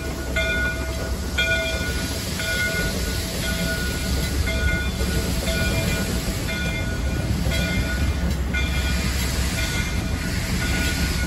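A steam locomotive's bell ringing over and over, a strike every half second to a second, as a small geared steam locomotive moves off, over the steady low rumble of the engine running on the rails.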